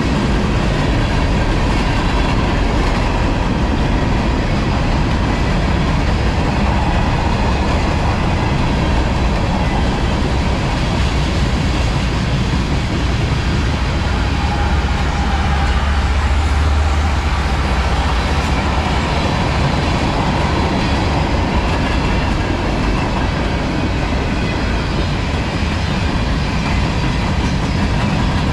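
Freight train cars rolling past with a steady, loud noise of steel wheels on rail, and a deeper rumble swelling briefly about halfway through.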